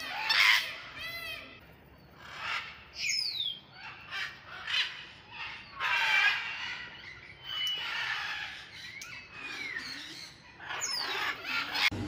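Parrots calling: short harsh squawks mixed with clear whistles that slide down in pitch, or rise and fall, repeated in separate calls.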